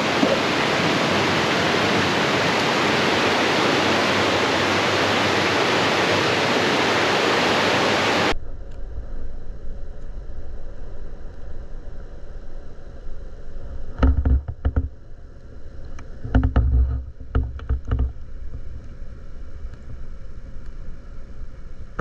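Steady rush of stream water that cuts off abruptly about eight seconds in, giving way to a quieter, muffled stretch with a few clusters of low thuds and knocks.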